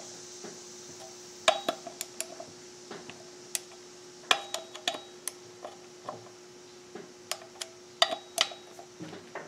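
Ratchet head of a torque wrench clicking in short runs, about one run every second, with metal clinks of the socket on the bolts. The motorcycle brake disc bolts are being tightened gradually to 20 foot-pounds in a star pattern.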